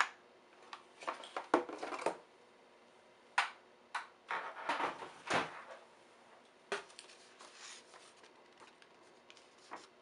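Handling noises from a cardboard box and a paper packing slip: scattered soft knocks, scrapes and rustles, with a longer rustle about five seconds in.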